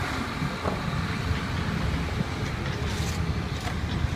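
Steady low rumble of motor vehicles running, with a few faint ticks over it.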